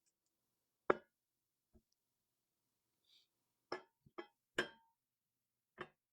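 Metal machine parts clinking and knocking together in a string of separate sharp hits, the loudest a little past halfway, as parts are handled and test-fitted for alignment.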